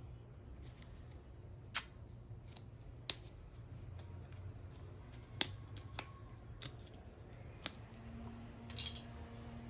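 Sharp plastic clicks and crackles as a screw cap is twisted off a plastic drink bottle and its seal gives: about half a dozen separate clicks, then a short crackling cluster near the end.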